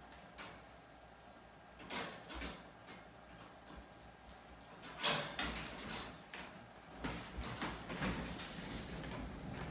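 A few short knocks and clicks, the loudest about halfway through, then several seconds of rustling near the end.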